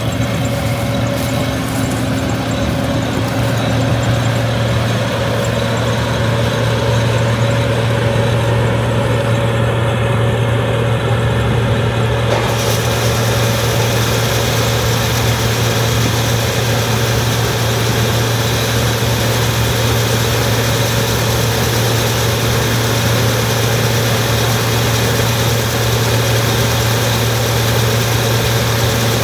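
Allis-Chalmers Gleaner F2 combine running steadily, a loud, even low engine drone with machinery noise over it; a higher hiss joins suddenly about twelve seconds in.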